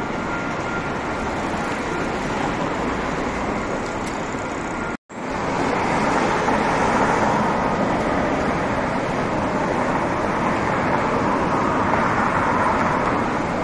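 City street ambience: steady road traffic noise from passing cars and buses, with a brief break about five seconds in.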